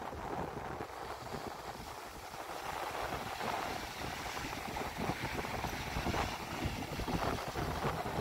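Wind buffeting the microphone over small waves washing onto a sandy shore, with gusts from about halfway through.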